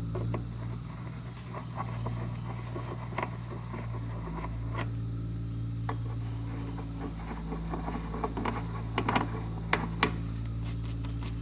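Steady low mechanical hum in the background, with scattered light clicks and knocks of a metal part being handled and test-fitted; a few sharper knocks come near the end.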